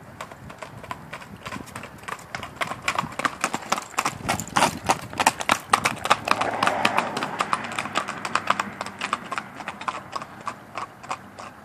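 Hoofbeats of a gaited Saddlebred/Tennessee Walking Horse cross on a gravel drive: a rapid, even clip-clop that grows louder as the horse passes close by in the middle, then fades as it moves away.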